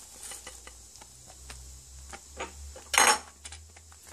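Kitchen utensil and stainless steel saucepan as chopped spinach goes into béchamel: light scattered taps and clicks, with one short, loud metallic clatter about three seconds in, over a steady low hum.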